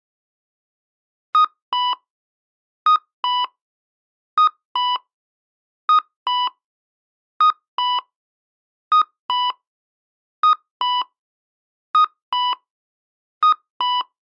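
Japanese pedestrian crossing signal sounding its electronic cuckoo-style 'kakkō' walk tone: a short higher note then a longer lower note, repeated about every one and a half seconds. It signals that the walk light is green.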